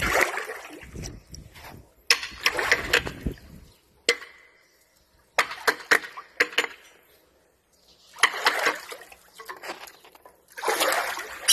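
Kitchen knife scraping and cutting a wet fish, a surgeonfish, on a wooden chopping block. It comes in about five scratchy, wet bursts with short pauses between them, and a few sharp knocks of the blade on the wood.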